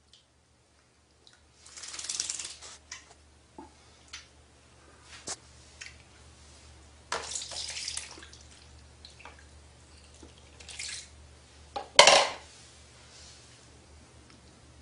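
Water splashing and sloshing in a basin as a cat shifts about in it, in a few separate bursts with small drips and knocks between, the loudest splash near the end.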